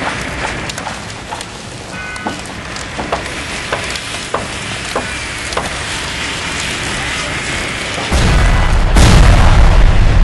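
Fire on a burning school bus crackling over a steady noisy hiss, with scattered sharp pops. About eight seconds in, a sudden loud, deep boom sets in and rumbles on.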